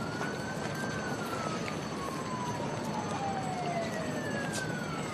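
An emergency-vehicle siren wailing faintly over a steady hum of city street traffic. Its tone rises briefly at first, then falls slowly over about three seconds, and a second, fainter falling tone follows near the end.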